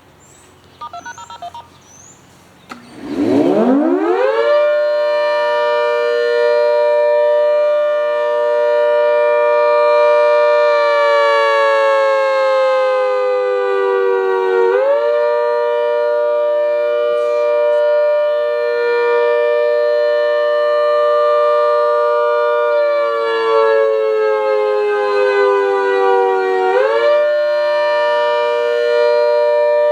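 Half-scale model Hurricane MKII civil defense siren, driven by a shop vac, sounding an attack signal. A few seconds in it winds up quickly to a loud, steady multi-tone chord. Twice the pitch sags slowly and then snaps back up.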